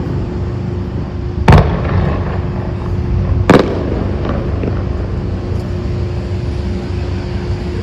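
Aerial firework shells bursting: two loud bangs about two seconds apart, over a steady background rumble with a constant low hum.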